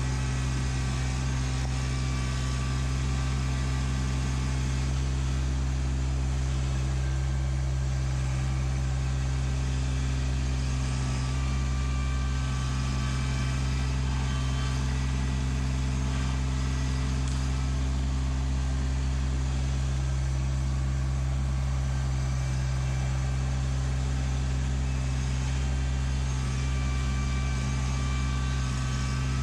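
Kubota LX2610 compact tractor's three-cylinder diesel engine running at a steady speed while the front loader works a grapple into the ground.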